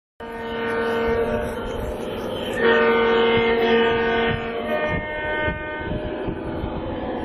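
An O scale model diesel locomotive's onboard sound system blowing a multi-chime horn, several tones sounding together, with a louder blast about two and a half seconds in that eases off about halfway through. Underneath is low running rumble.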